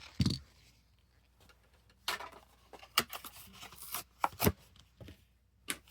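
Blister-carded diecast car being handled: irregular sharp clicks and short crinkles of the plastic blister and cardboard backing card.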